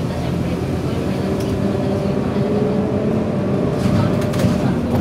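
Engine hum and road noise inside a moving road vehicle, the engine's pitch drifting slowly as it drives, with a few light clicks or rattles about four seconds in.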